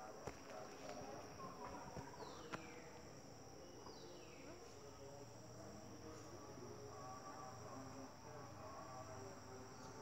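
Steady high-pitched drone of an insect chorus, with two falling whistle-like glides about two and four seconds in.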